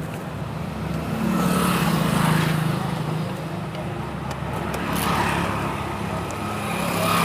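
Road traffic going past: vehicles swell and fade about three times over a steady low hum.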